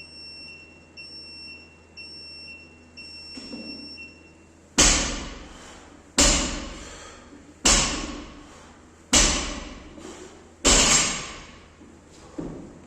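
Electronic workout timer counting down with three short beeps and a longer final beep. Then a loaded barbell with bumper plates hits the floor five times, about a second and a half apart, each bang ringing off.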